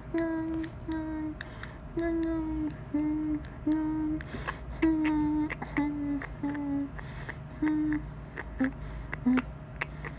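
A person humming a slow tune close to the microphone, note by note, with a few sharp clicks and a steady low hum underneath.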